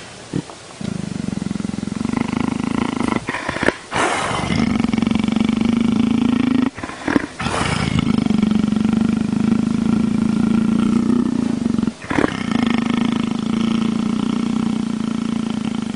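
Leopard purring, a steady low pulsing purr that starts in a few separate pulses and then runs on, breaking off briefly three times.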